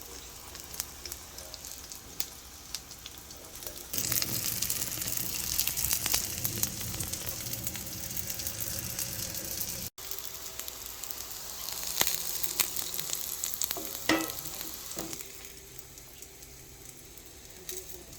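Squash flowers frying in a hot pan: a steady sizzle with many small crackles, getting louder about four seconds in and easing off toward the end.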